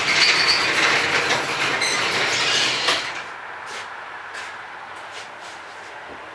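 BMW E36 engine running through a straight-piped exhaust, loud and rasping with a rapid chatter from an exhaust leak at the loosely fastened headers. About three seconds in the sound drops away sharply, leaving only a faint hiss and a few light clicks.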